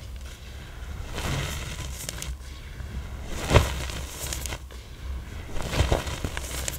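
Firmly pressed black iron oxide blocks crunching and crumbling as they are crushed: a string of irregular crisp crunches, the sharpest snap about three and a half seconds in.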